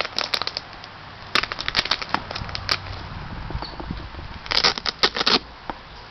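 Hands handling a white high-top sneaker in its box: three bouts of crackling rustles and light taps, near the start, in the middle and again near the end.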